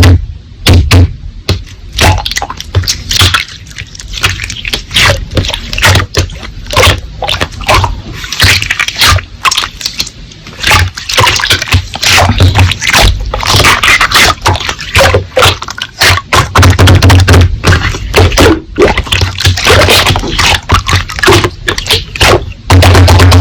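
Slime being squeezed and worked by hand, making a rapid, dense run of wet clicks and pops.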